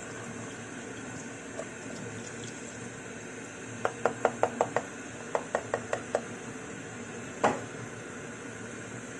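Coconut milk pouring from a carton into a stainless steel pot of fish. It is followed by two quick runs of about six sharp knocks each as the emptied carton is shaken over the pot, then one louder knock.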